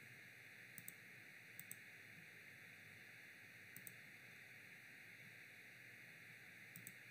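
Near silence: a faint steady hiss, broken four times by a soft double click of a computer mouse button (press and release) as pages are saved and switched.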